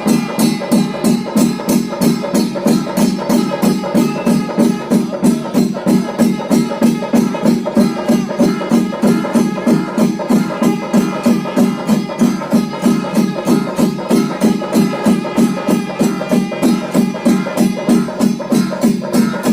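Chenda melam: Kerala chenda drums beaten together with clashing ilathalam cymbals, in a steady, even beat of about three strokes a second.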